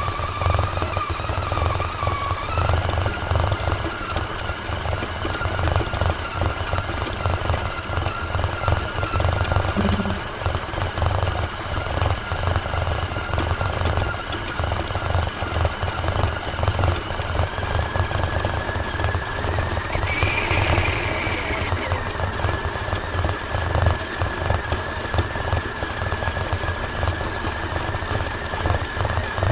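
Brushed electric motor and gearbox of an Axial Honcho RC crawler whining steadily as it drives over rough, muddy ground, heard from on board the truck over a dense, rapid rattle. The whine steps up in pitch a couple of seconds in.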